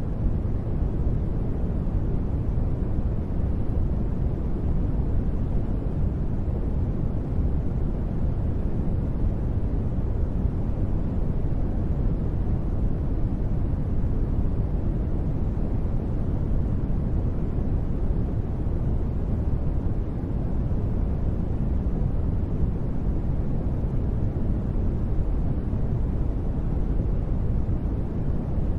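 Continuous sleep-aid noise of the kind sold as white noise, but weighted heavily toward the low end, so it sounds as a deep, even rushing hiss. It holds steady, with no sudden sounds or changes.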